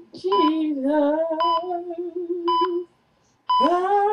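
A hospital heart monitor beeps steadily about once a second, a short high tone each time. Over it a voice hums a long, wavering note, breaks off briefly near the end and picks up again.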